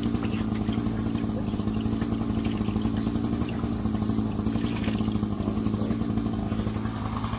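Two-stroke chainsaw engine running at a steady high speed, holding an even pitch throughout.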